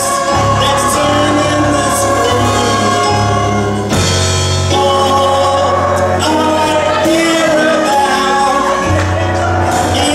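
Show-tune music with singing from a live stage performance, a full band with a strong bass line under the voices.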